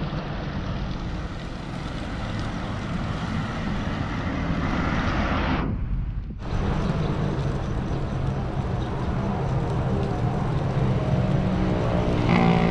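Wind buffeting the microphone of a handlebar-mounted action camera on a moving bicycle, heard as a steady low rumble with road noise. It breaks off for a moment about halfway through, then carries on.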